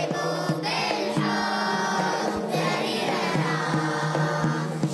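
A group of children singing an upbeat Arabic song together in unison, over instrumental backing with a steady drumbeat.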